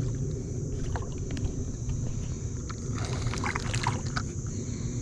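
Baitcasting reel being cranked quickly to bring in a small smallmouth bass: a steady fluttering low rumble of the reel and handling, with scattered sharp clicks and ticks around three to four seconds in.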